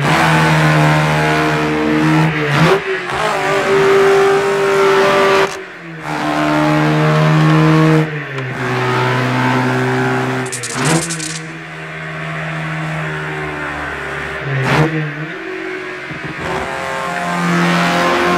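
The engine of the racing car Il Tempo Gigante running at speed with a steady, high hum. Its pitch jumps up or down every few seconds. A brief hiss comes about ten and a half seconds in.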